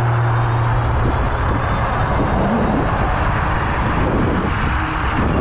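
Wind rushing over the microphone while riding a fat-tire electric bike, with a steady low hum for about the first second.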